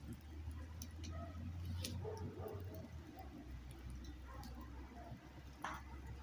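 Campfire crackling, with scattered sharp pops, the clearest about two seconds in and near the end, over a low steady hum.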